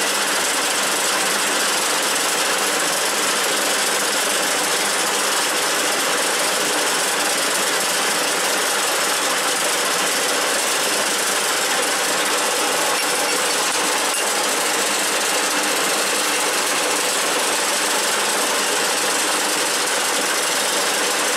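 A 1K62 screw-cutting lathe running steadily at high spindle speed, a continuous mechanical hum and rattle of the headstock drive, while a nut in the chuck is threaded with a tap pressed in by the tailstock centre.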